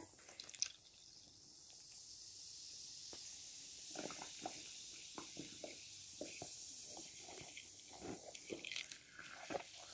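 Vinegar poured onto baking soda in a small plastic funnel, the reaction fizzing faintly with scattered small crackling pops that come more often from about halfway through.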